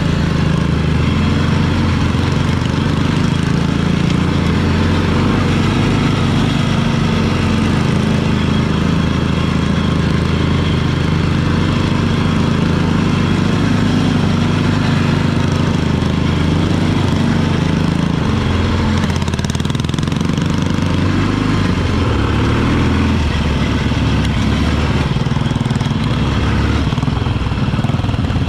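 Motorcycle engine running steadily at low speed, heard close up from the bike itself as it rides a dirt lane; the engine note dips briefly about two-thirds of the way through.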